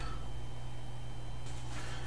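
Quiet room tone with a steady low hum and no distinct sound event.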